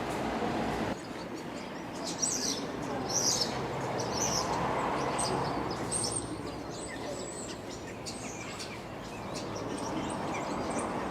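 Birds chirping in quick, short calls over a steady background hum of outdoor noise; the chirping is busiest in the middle and thins out towards the end.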